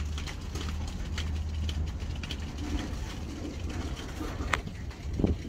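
Freight train tank cars rolling slowly backward on the rails with their brakes still applied: irregular metallic clicks and ticks from the wheels and trucks over a low rumble, with one sharper click about four and a half seconds in.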